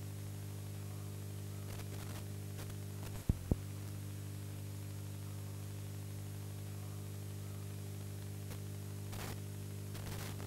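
Steady electrical mains hum with a layer of static hiss, with two short clicks about three seconds in.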